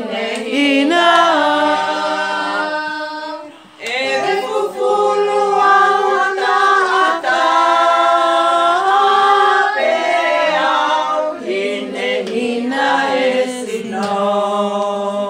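A group of voices singing together without instruments, in long held notes with several pitches at once, with a short break about four seconds in.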